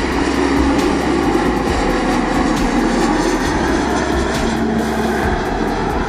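Airliner engines running loud and steady, a dense roar of engine noise.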